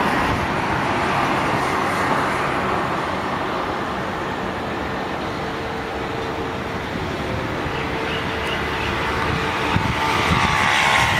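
Steady road traffic noise of passing cars, with a high whine coming in near the end.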